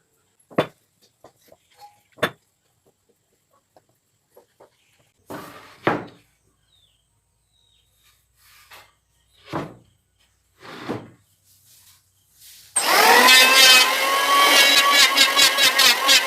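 Two sharp knocks and some scraping and handling of wood, then about 13 s in a power tool's motor starts suddenly and runs loud and steady.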